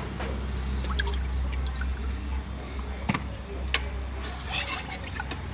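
Water sloshing and splashing in a metal pot as hands rub and turn whole fish to wash them, with scattered drips and small knocks over a steady low hum.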